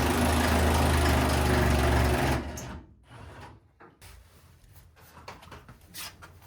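A power tool's motor runs steadily for about two and a half seconds, then winds down, followed by faint clinks and knocks of work on the truck.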